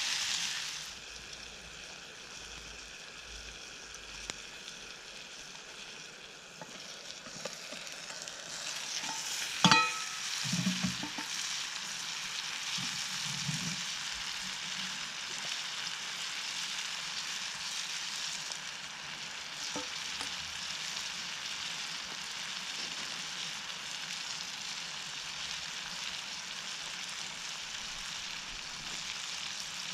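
Mushrooms and vegetables sizzling in a frying pan over campfire coals, a steady hiss. There is one sharp click about ten seconds in, after which the sizzling grows louder.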